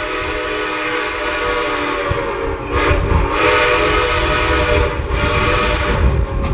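Steam locomotive whistle blowing one long steady chord, with loud hissing bursts of steam starting about three seconds in.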